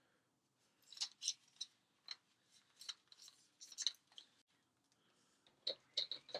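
Unboxing handling noise: scattered short clicks and rustles of plastic packaging and light-panel parts being handled, in two clusters, one from about a second in and another near the end.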